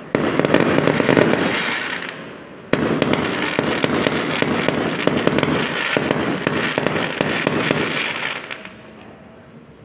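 Aerial fireworks bursting overhead: a sharp bang at the start followed by dense crackling that fades, then a second sharp bang about three seconds in and several seconds of dense crackling from the golden crackle stars, dying away near the end.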